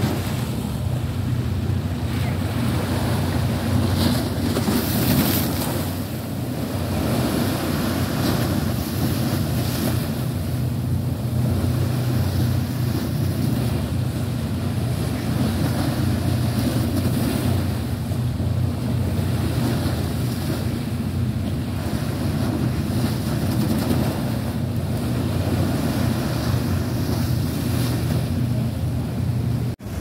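Strong wind buffeting the microphone over a rough, choppy sea, with waves washing and slapping against a harbour pier. A steady low hum runs underneath.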